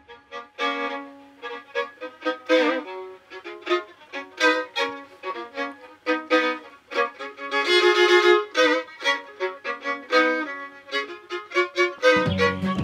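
Solo violin playing a melody of short separate notes, with a louder held note partway through. Near the end, deeper accompanying sounds join in.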